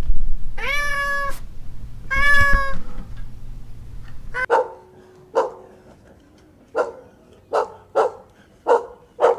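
Domestic cat meowing twice, two long drawn-out calls. Then, in another clip, an animal gives a run of seven short, sharp calls at uneven intervals.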